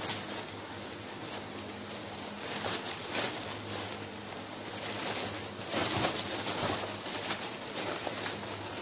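Clear plastic wrapping crinkling and rustling as a plastic power strip and its coiled cord are handled and pushed back into the bag, with scattered light clicks of hard plastic knocking.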